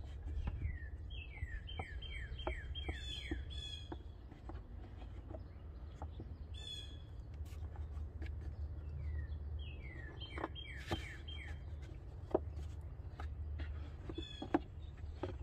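Birds chirping in quick runs of falling notes, one run about a second in and another about ten seconds in, with single chirps between. Faint scattered clicks over a steady low rumble.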